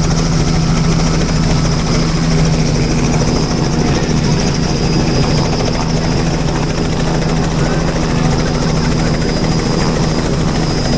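Robinson R66 helicopter running on the ground with its main rotor turning, the Rolls-Royce RR300 turbine and rotor giving a loud, steady hum with a thin high whine above it.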